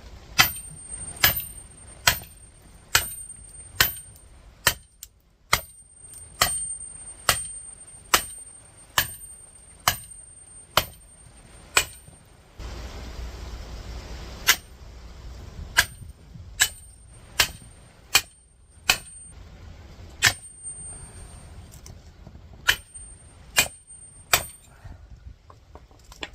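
Big hammer striking the back of an axe head again and again, driving the axe through an electric motor's steel stator; each blow is a sharp metallic clang with a high ring, coming a little under a second apart. The blows pause briefly about halfway, then carry on.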